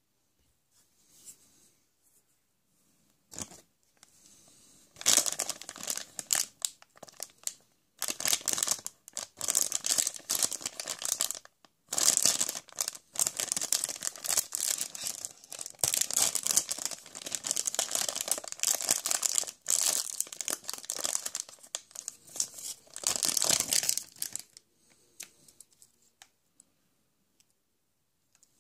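Wrapping being torn open and crumpled by hand: a long run of crackly tearing and crinkling in uneven spurts with short pauses. It starts about five seconds in and stops a few seconds before the end.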